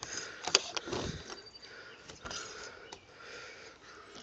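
Faint handling noise: a few light clicks and a soft thud as small plastic pager pieces and a paper booklet are moved about.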